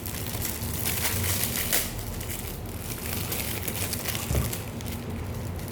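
Packaging crinkling and rustling as it is handled and unwrapped, with a soft knock about four seconds in.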